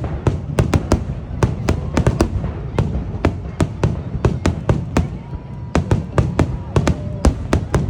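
Rapid barrage of aerial fireworks, sharp bangs coming about four a second over a continuous low rumble of overlapping reports.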